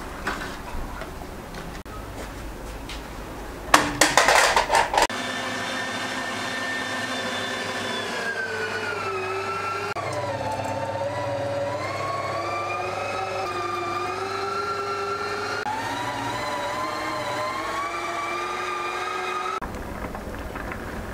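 A brief clatter, then an electric meat grinder's motor runs with a steady whine for about fifteen seconds. Its pitch sags and recovers as food is pushed through under load, and the sound cuts off suddenly near the end.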